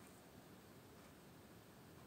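Near silence: faint room tone and hiss.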